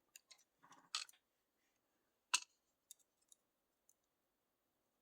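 Faint, scattered small clicks and ticks of lock parts being handled as a gutted pin-tumbler lock is taken apart and its pins sorted: a quick cluster in the first second, one sharper click about two and a half seconds in, then a few lighter ticks.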